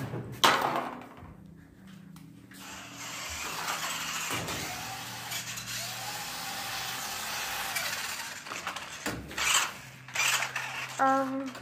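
Small electric motor of a toy RC car whirring as it drives, after a sharp knock about half a second in.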